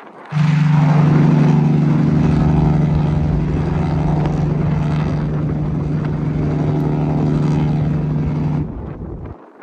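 Cruise ship's horn sounding one long, deep, steady blast of about eight seconds as the ship sails away.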